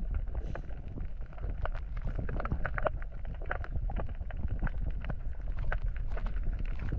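Underwater ambience: a steady low rumble with many small, sharp clicks and crackles scattered through it.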